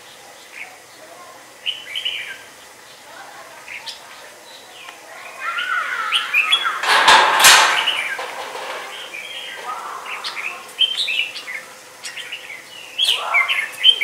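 Small songbirds chirping and calling in short bursts, with a loud dense flurry of chirps and two sharp knocks about seven seconds in, and more chirping near the end.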